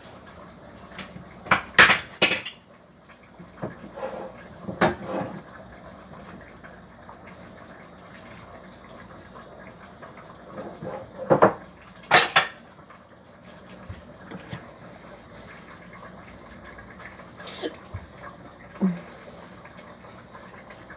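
Metal cookware being handled: pots, pans and lids clattering and clanking against each other and the counter. There are a few loud clanks about two seconds in, another near five seconds, a pair near twelve seconds, and lighter knocks near the end.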